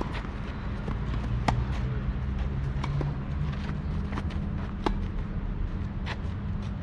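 Tennis rally: rackets striking the ball back and forth about every one and a half seconds. The near player's strokes are loud, sharp pops and the far player's are fainter. A steady low rumble runs underneath.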